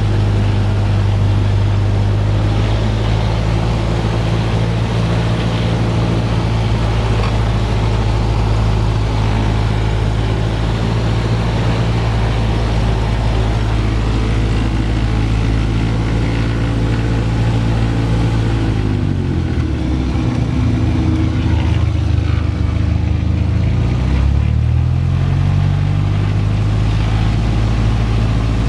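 Cessna 172P's four-cylinder Lycoming engine and propeller running steadily at low taxi power. About two-thirds of the way through, the engine note drops and then climbs back up a few seconds later as the throttle is eased back and brought in again.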